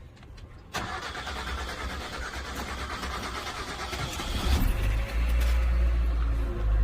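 Engine of a 30-year-old car running loudly, with a heavy deep rumble that comes in about four and a half seconds in.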